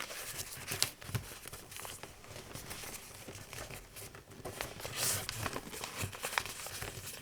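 A sheet of paper being folded and creased by hand: crinkling and rustling, with short sharp crackles here and there.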